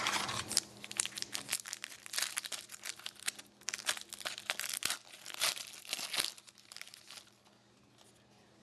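Hockey trading cards and pack packaging handled and shuffled: a quick run of soft rustles, crinkles and clicks that stops about seven seconds in.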